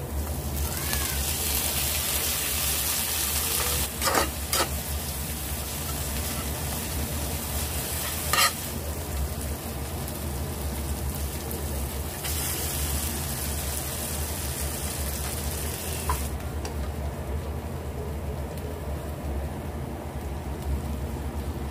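Food sizzling in hot oil in a frying pan: diced onion and sliced tomato frying, the sizzle flaring up strongly about a second in and again about twelve seconds in as more food goes into the pan, with a few sharp knocks of the utensil against the pan and stirring sounds.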